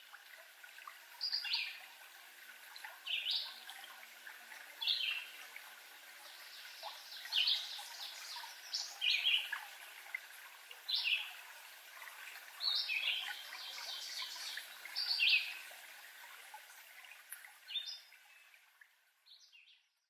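Songbirds singing in woodland: a short, quick song phrase repeated about every two seconds over a steady faint hiss, fading out near the end.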